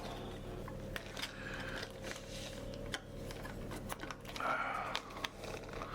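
Light, irregular clicks and taps of small tools and parts being handled while a Fujifilm X-T2 camera is taken apart to free its LCD screen.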